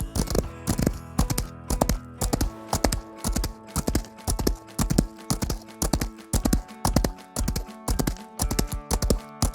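Background music with a steady, regular percussive beat under sustained notes.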